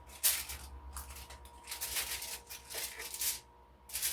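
Kitchen handling sounds: several short rustling scrapes about a second apart, as chicken is handled in breading and set in a pan.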